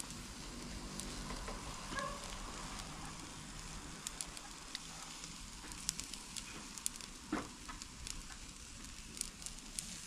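Sargo (white seabream) sizzling on a grill over a fire, a steady hiss broken by scattered crackles and pops, one louder pop about seven seconds in.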